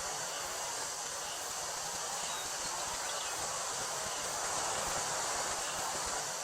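Wind rustling through a wheat field over a steady high drone of summer cicadas; the wind swells slightly about four to five seconds in.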